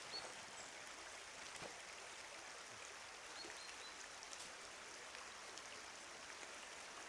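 River water flowing: a steady faint rush, with a few faint short high chirps over it.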